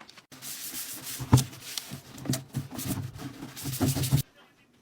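A surface being wiped and rubbed by hand, a steady scrubbing with a few knocks, the loudest about a second in; it cuts off suddenly about four seconds in.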